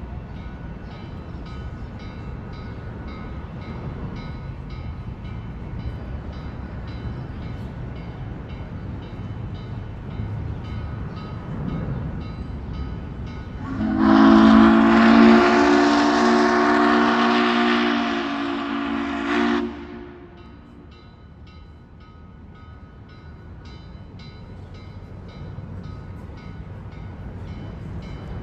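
Steam locomotive 1309, a Chesapeake & Ohio 2-6-6-2, running with a steady rumble and an even beat, then sounding its steam whistle in one long chord of several notes, loud, for about five seconds a little past the middle.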